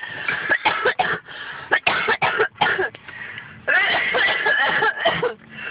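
People laughing in short, stifled, breathy bursts, with a longer voiced laugh about two thirds of the way through.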